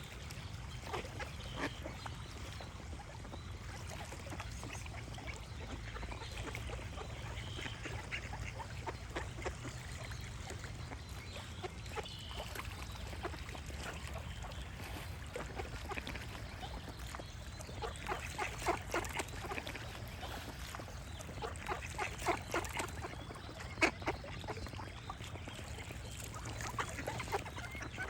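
Ducks quacking in runs of quick quacks, several bouts, busiest in the second half, with a few faint bird chirps over a steady low rumble.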